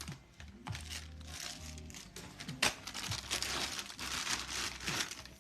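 Packaging crinkling and rustling in repeated bursts as items are handled, with one sharp click about two and a half seconds in, over soft background music.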